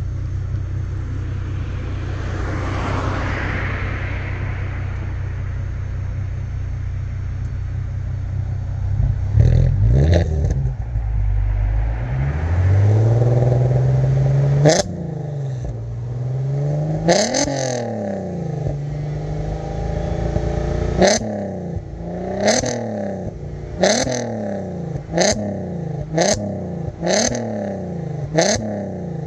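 Volkswagen Golf R32's 3.2-litre VR6 engine through its twin centre exhaust, idling steadily, then free-revved while stationary. One slow climb ends in a sharp crack about fifteen seconds in, then comes a run of quick throttle blips about one every second or so, each with a sharp crack at its peak.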